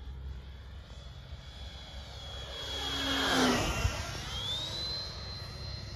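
Freewing F5 Tiger RC electric ducted-fan jet making a low pass, loudest about halfway through. A high whine dips as it goes by and then climbs again. It sounds weird and sickly because a 12-blade fan has been fitted to a motor that suits the 9-blade fan, and that fan does not work with this motor.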